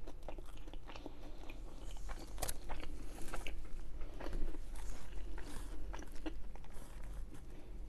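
Close-up chewing of a mouthful of Burger King cheese triple Whopper: a steady run of small, irregular clicks of mouth and teeth working through the bite.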